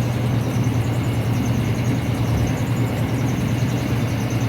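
York 3-ton rooftop air-conditioning unit running steadily with its compressor on and a newly replaced condenser fan motor turning, a constant electrical hum under the whoosh of the fan.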